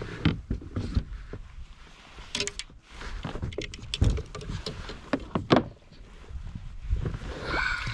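Irregular knocks, clicks and clatter of fishing rods and tackle being handled and stowed in the rod holders of a sit-on-top kayak, the gear bumping against the hull.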